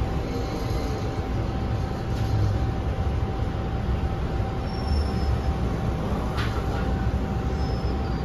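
MTR M-train metro car heard from inside while running into a station: a steady rumble of wheels on the track under a constant whine from the traction equipment, with a couple of faint, brief high squeals.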